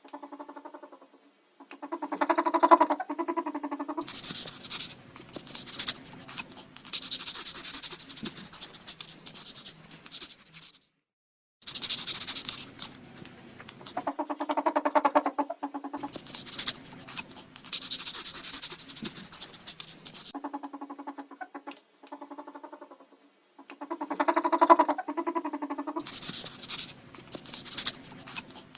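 Ferret sounds: short stretches of a pitched, buzzy call alternating with longer stretches of scratchy, hissing noise. The sequence repeats about every ten to twelve seconds.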